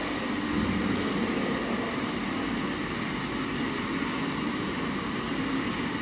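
Hydromassage air jets bubbling up through a spa pool: a steady rushing, bubbling noise.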